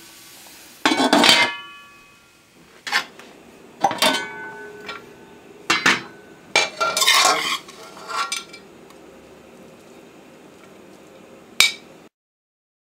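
A metal utensil clinking and scraping against an aluminium wok as stir-fry is dished onto a plate: a series of sharp strikes, several left ringing, the loudest about a second in.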